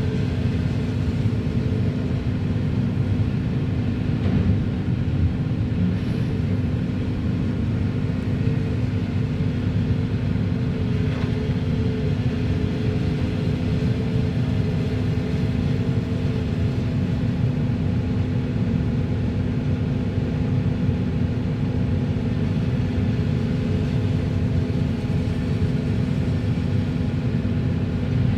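Volvo EC480DL excavator's diesel engine running steadily: a constant low rumble with an unbroken drone.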